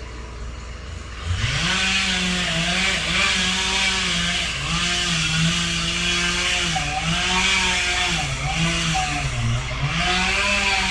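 Chainsaw starts up about a second in and runs while cutting, its pitch wavering and dipping as it takes the load.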